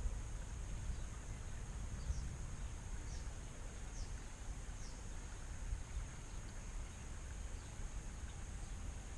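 Outdoor ambience: a steady high insect drone, with four or five short, falling bird chirps about two to five seconds in, over a low rumble of wind on the microphone.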